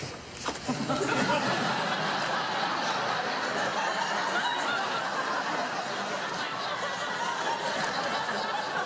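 Sitcom studio audience laughing, a sustained wave of laughter that swells about half a second in and carries on for several seconds.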